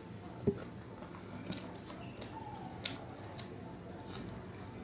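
Close-miked eating sounds: a person licking food off her fingers and chewing, giving a series of short wet mouth clicks and smacks, with a soft low thump about half a second in.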